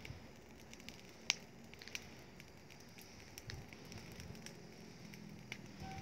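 Burning rubbish crackling, with scattered pops and one sharper snap about a second in.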